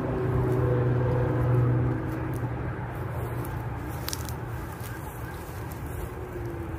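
Engine hum of a passing motor vehicle, loudest in the first two seconds and then fading, over a constant outdoor rush of wind and distant noise. A faint click about four seconds in.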